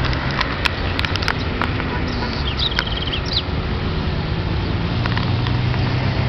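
Outdoor street noise: a steady rushing wash of wind and traffic with a low engine hum, and a short rapid bird trill about two and a half seconds in.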